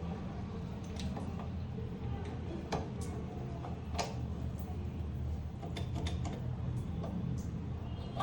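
Scattered sharp metallic clicks and clinks over a steady low hum, typical of hand tools handled on motorcycle parts during a repair.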